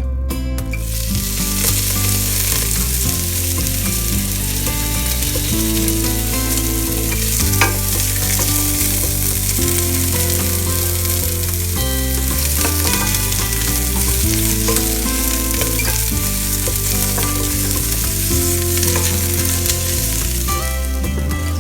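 Food frying in hot oil in a pan: a steady sizzle that starts about a second in and dies away near the end, with background music underneath.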